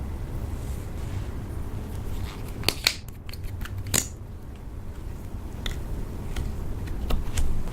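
Slime being handled and pressed, giving a handful of sharp clicks and pops, a pair near the middle, one a second later and two more near the end, over a low steady rumble.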